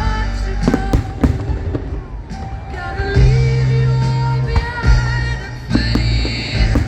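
Fireworks shells bursting with several sharp bangs at irregular intervals over loud rock music with singing.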